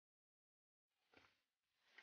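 Near silence, broken by two faint short sounds, one about a second in and one near the end.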